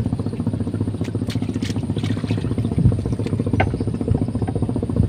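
A small engine running steadily with a fast, even putter, and a few light clicks over it.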